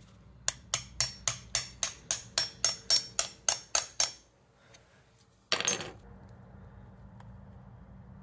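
About fourteen quick metal-on-metal hammer taps, roughly four a second, on a steel rod set in the crankshaft's clutch pilot-bearing bore. This is driving packed bread into the bore to force out the old pilot bearing. About five and a half seconds in comes one louder, longer knock.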